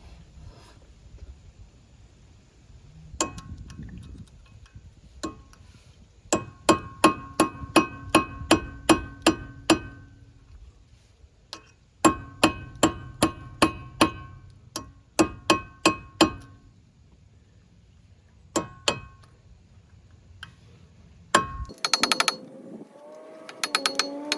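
Hammer striking metal, each blow ringing, in several runs of quick strikes (about a dozen in the longest run, then shorter runs of six, four and two), with a fast metallic rattle near the end.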